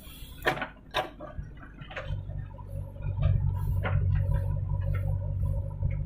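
JCB 3DX backhoe loader's diesel engine running under load as the backhoe bucket digs into soil, with several sharp knocks from the bucket in the first few seconds. The engine grows louder about three seconds in as the arm works harder.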